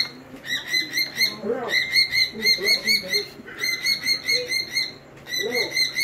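Cockatiel chirping in quick runs of short, even-pitched chirps, about six a second, broken by brief pauses.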